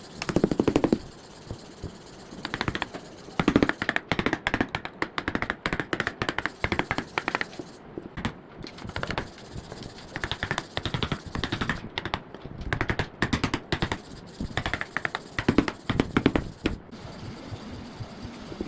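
A hand tool working wood in rapid runs of short strokes, each run lasting a second or two with brief pauses between.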